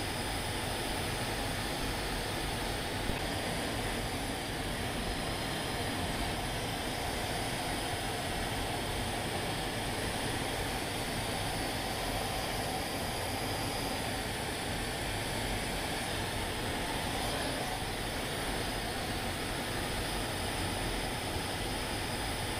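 Steady cockpit noise of an L-39 Albatros jet trainer in flight, its Ivchenko AI-25TL turbofan engine running, heard inside the canopy.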